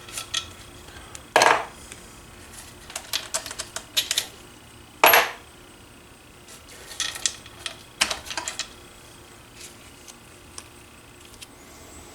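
Metal engine parts and hand tools clinking and clanking as a small engine is taken apart, with two louder clanks and quick runs of light clicks between them.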